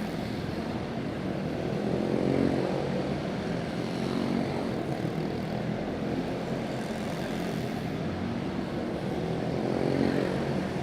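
Quarter midget race cars with single-cylinder Briggs & Stratton Animal engines running laps on a dirt oval. Their buzzing engine note swells and fades twice as the cars come past.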